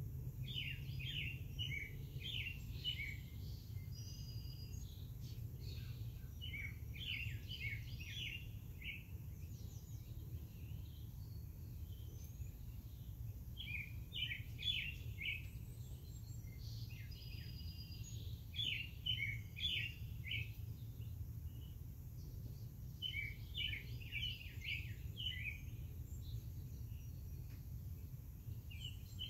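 Songbirds singing: one bird repeats a short phrase of quick, high notes about five times, every five seconds or so, with fainter chirps between, over a steady low background rumble.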